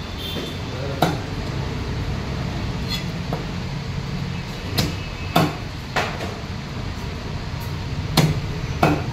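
Knife blade chopping snakehead fish on a wooden log block: several sharp, irregularly spaced knocks, over a steady low background rumble.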